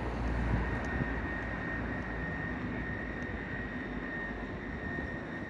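Vehicle rumble in city street noise, with a steady high whine running through it; the low rumble is strongest in the first second or so, then eases.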